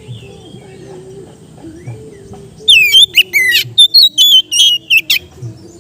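Oriental magpie-robin (kacer) singing a loud burst of rapid whistled notes, many sliding downward, that starts about halfway through after a quiet pause. A faint low wavering hum runs underneath.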